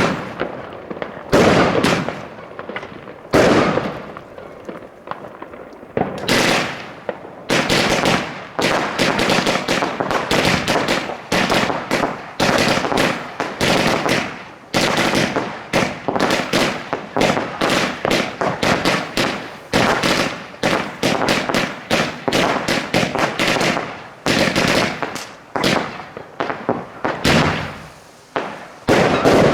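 New Year's Eve fireworks going off: a few separate bangs, then, from about seven seconds in, a dense barrage of rapid, crackling bangs that runs on with hardly a pause.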